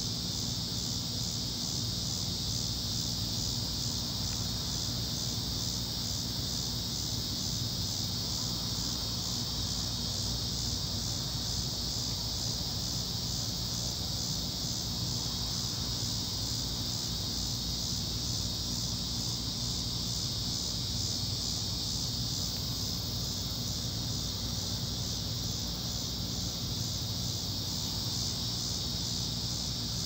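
A steady chorus of insects trilling high and with a fine, even pulse, over a low steady hum.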